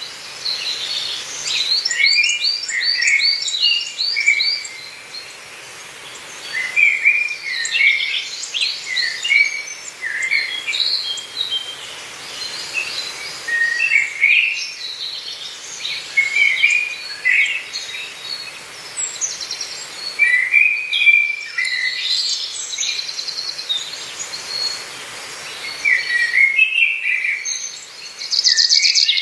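Wild songbirds singing in a forest: short phrases of quick, high chirps and trills that come every few seconds, with a denser, buzzier trill near the end, over a faint steady background hiss.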